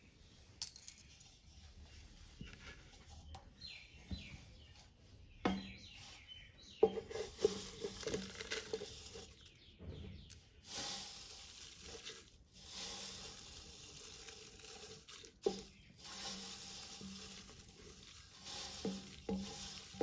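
Dried fenugreek leaves (kasuri methi) rustling and crackling as they are tipped from a steel bowl into a plastic tub, with a couple of sharp knocks.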